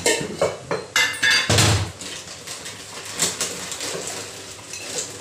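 Steel kitchen containers and utensils clattering as they are handled on the counter, with loud knocks in the first two seconds and lighter clinks after.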